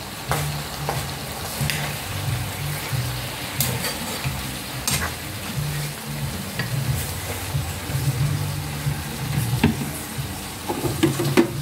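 Pork, chicken liver and chayote frying in a pan on a gas stove, with a spatula scraping and clicking against the pan as the mix is stirred. A low steady hum runs underneath.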